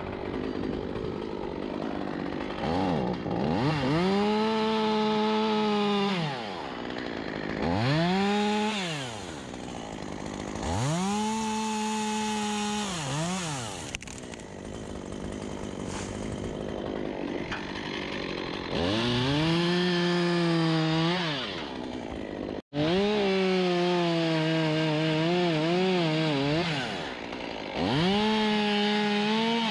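Two-stroke chainsaw run up to full throttle about six times, a few seconds each, dropping back toward idle in between as it cuts through poplar wood. In the long run a little after twenty seconds in, the engine pitch wavers as the chain loads up in the cut.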